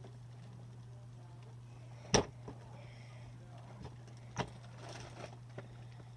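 Small clicks and knocks from fidget toys being handled: one sharp click about two seconds in, another a couple of seconds later and a few fainter ticks, over a steady low hum.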